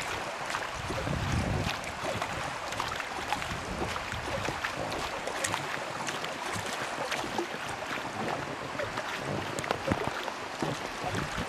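River water rushing and splashing close beside a boat, a steady hiss dotted with many small splashy clicks.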